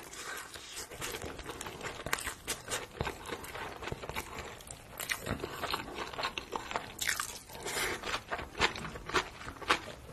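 Close-miked chewing of chicken in a red spicy sauce with rice: a steady run of sharp mouth clicks and crunches, busiest about two-thirds of the way in.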